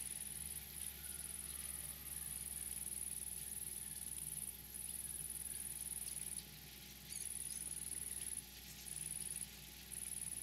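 High-pitched insect song: a continuous, thin buzz broken by short pauses every second or two, over a faint low hum.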